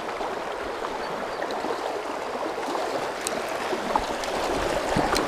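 Shallow river water rushing steadily over stones, with a couple of faint clicks.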